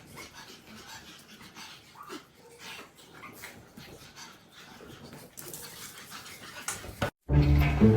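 A pug making quiet, irregular short breathing and vocal sounds. Near the end the sound cuts out for a moment, and loud music begins.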